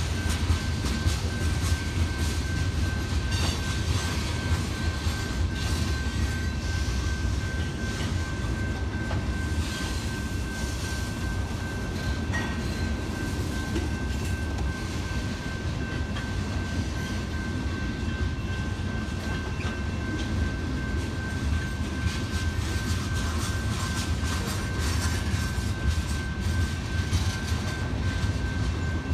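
California Northern (CFNR) freight train of tank cars rolling through a road crossing: a steady low rumble with wheels clacking over the rail joints. A steady high tone sounds through it.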